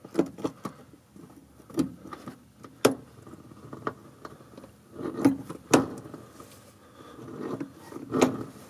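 Scattered light metallic clicks and knocks of an accelerator pedal arm and its throttle cable linkage being handled and pushed by hand, as the pedal's position on its splined shaft is checked for full throttle travel.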